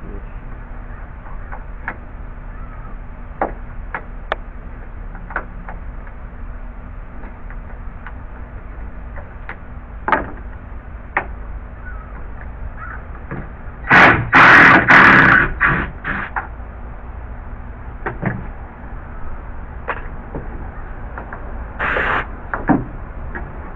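Work on old wooden deck boards: scattered light knocks and clicks, a loud clattering burst lasting about two seconds a little past the middle, and a shorter scrape near the end.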